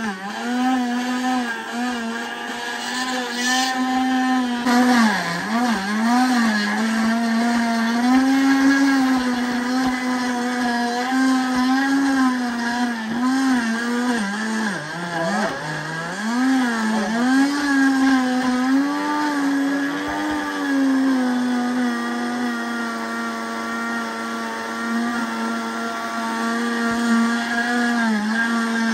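SC-1589 multifunction countertop blender's motor running at high speed, crushing chunks of fruit. Its pitch sags and recovers several times, most markedly about five seconds in and again a third of the way through, as the blade loads up and a tamper pushes the fruit down.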